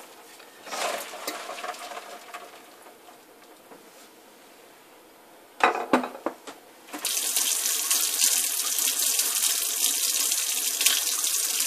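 Kitchen tap turned on about seven seconds in, water running steadily into an empty stainless steel sink. Just before, there are a couple of sharp knocks.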